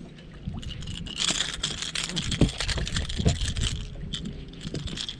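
A small spotted bass is reeled in and swung aboard a bass boat, splashing and thrashing at the surface in a burst of crackling splashes. Two heavy thumps follow, about halfway through, as it lands and flops on the deck.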